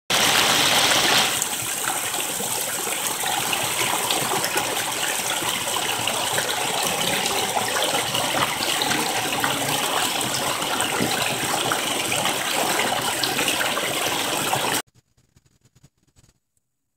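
Waterfall pouring over rocks: a steady rush of water, a little louder in the first second, that cuts off suddenly near the end.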